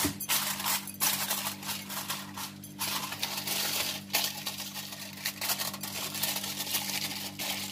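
Aluminium foil crinkling and crackling as hands press and tighten it over the rim of a bowl, in many short irregular rustles, with a faint steady hum underneath.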